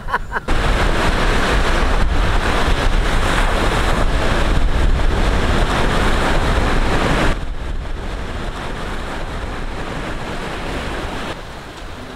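Sea surf breaking and washing up on a beach, with wind buffeting the microphone. The sound drops clearly in level a little past halfway.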